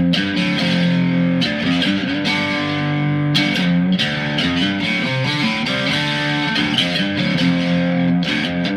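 Mexican-made Fender Stratocaster electric guitar in drop tuning, played through an amp: sustained low chords that change about every second, with sharp strum attacks.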